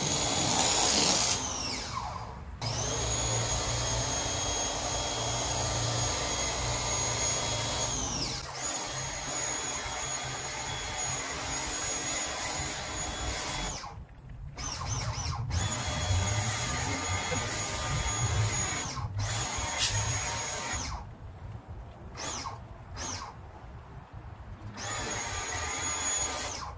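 Pressure washer spraying through a foam cannon: a loud hiss of spray with a steady high whine over the hum of the running pump. The spray cuts off and starts again several times as the trigger is released and squeezed.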